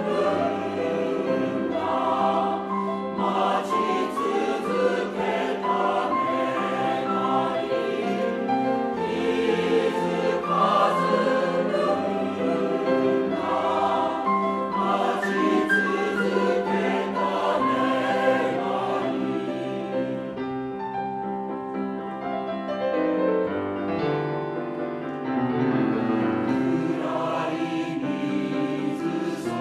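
Mixed choir of women's and men's voices singing in parts. Roughly two-thirds of the way through the singing drops to a softer, thinner passage, then swells back to full voice near the end.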